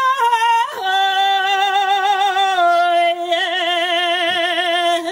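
An Evenki woman singing a folk song without words into a microphone, holding long notes: a high note, a slide down to a lower note about a second in, and that lower note held for about four seconds with vibrato in its second half.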